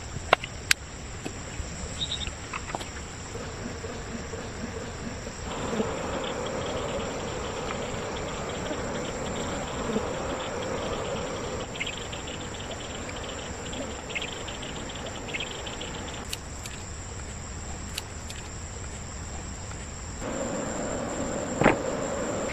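Steady high-pitched insect chorus, likely crickets, running throughout. Over it are two stretches of louder rustling or scraping noise and a few sharp clicks or knocks, the loudest near the end.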